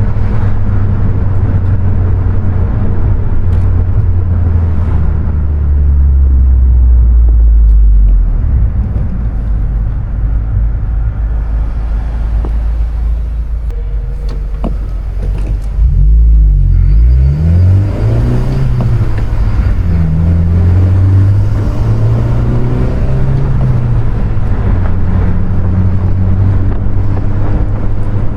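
2020 Honda Civic Si's turbocharged 1.5-litre four-cylinder engine running under way: its note falls and fades about eight seconds in, stays lower for a while, then about sixteen seconds in the revs swing up and down quickly, as at gear changes, before settling into a steady pull.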